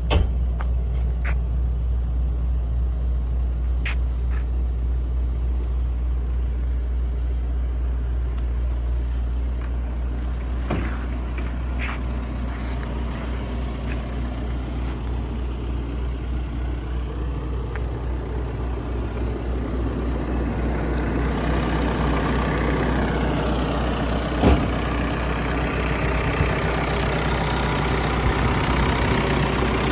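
JCB 86C-1 excavator's diesel engine idling steadily, growing louder and fuller from about two-thirds of the way in as the open engine bay comes close. A single sharp knock about 24 seconds in.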